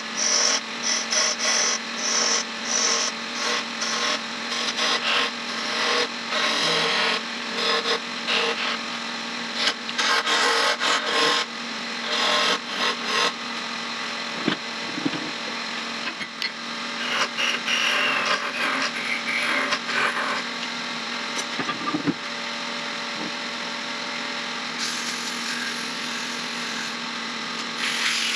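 Wood lathe running with a steady hum while a tool works the spinning wood in quick, irregular scraping strokes, turning a small lid handle. The strokes are dense for the first dozen seconds or so, then fewer and lighter.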